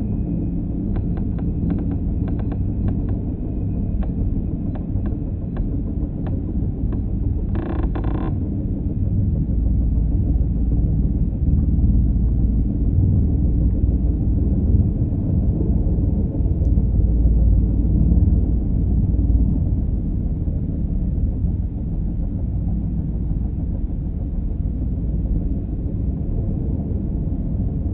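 Twin-turbine Eurocopter EC145 helicopter hovering: a steady deep rumble of rotor and engines, growing a little louder around the middle.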